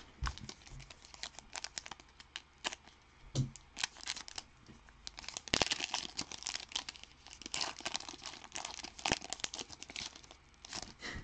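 A Panini Mosaic football card pack being torn open and its wrapper crumpled in the hands: a dense run of irregular crackles, busiest around the middle.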